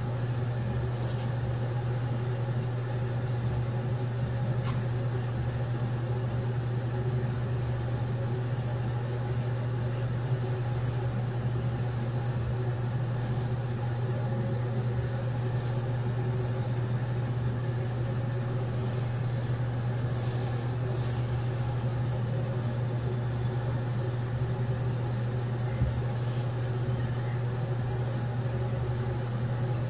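A steady low hum, even and unchanging, like a running motor or appliance.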